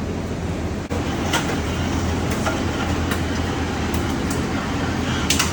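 Vicon TDX16 rollformer running steadily while forming flexible duct connector: a low, even machine hum with irregular sharp clicks, two of them close together near the end.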